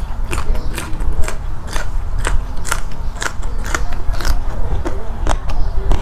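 Close-miked crunching of a raw yard-long bean being bitten and chewed, crisp crunches at about two a second.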